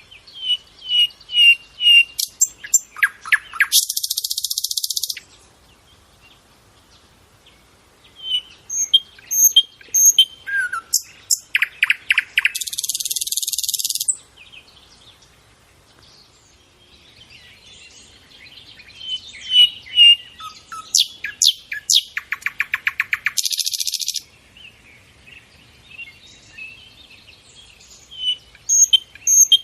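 Nightingale singing: three phrases a few seconds apart, each a run of repeated whistled notes that builds into a loud buzzing rattle, with softer notes in the pauses.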